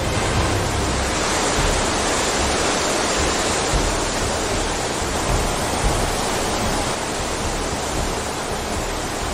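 Torrent of muddy floodwater pouring over a weir and through dam spillways: a steady, dense rushing of water.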